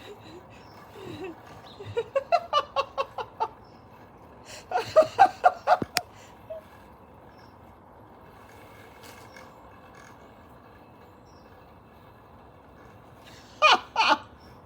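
A person laughing in short rhythmic bursts, two bouts a few seconds apart, with a sharp click just after the second bout and another short loud vocal burst near the end.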